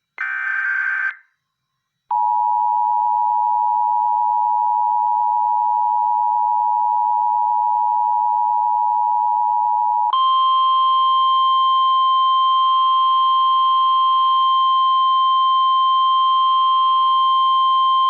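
Emergency Alert System tones. The last burst of the SAME digital data header is a brief buzzy warble, followed by about a second of quiet. Then comes the steady two-tone EAS attention signal for about eight seconds, which switches abruptly to a single steady weather-radio warning tone.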